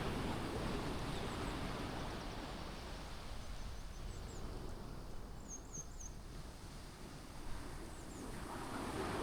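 Sea surf washing on a beach, easing off through the middle and building again near the end. Faint, short high bird chirps over it, a quick run of three or four about halfway through.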